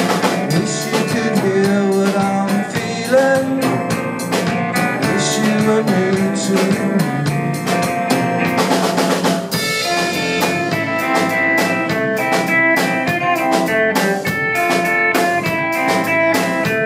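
Small rock band playing an instrumental break with no singing: drum kit keeping a steady beat with rimshots, under strummed acoustic guitar and an electric guitar. A little past halfway the sound fills out with held higher notes.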